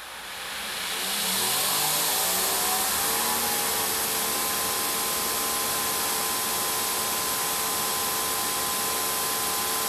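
Greenworks 2300 PSI electric pressure washer spraying through its factory nozzle for a pressure test. The hiss of the spray builds in the first second, the motor and pump wind up in pitch over the next couple of seconds, then they run at a steady whine.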